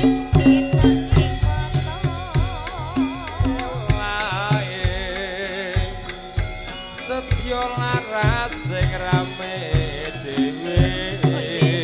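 Javanese karawitan (gamelan) ensemble music: repeated hand-drum strokes under a steady melodic backing, with a wavering, wobbling melodic line in the middle.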